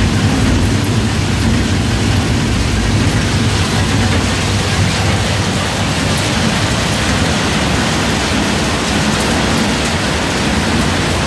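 Almond cracking and sieving line running: a steady machine hum under a dense, even rattle of almond shells and kernels moving over the steel sieves and channels.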